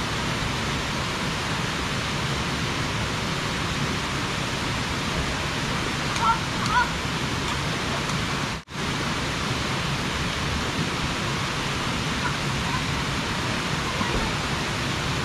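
Waterfall pouring, a steady rush of water, with faint distant voices about six seconds in and a brief dropout a little past halfway.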